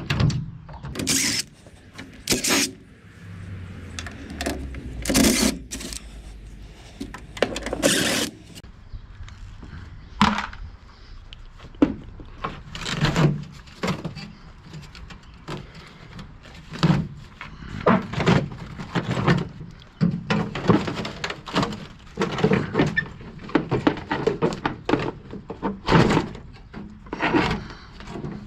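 Irregular knocks, thuds and clatter of objects being handled and set down, one after another, with no engine running.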